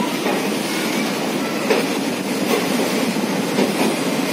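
Indian Railways passenger express coaches rolling along a station platform: a steady running noise, with a few clacks as the wheels pass over rail joints.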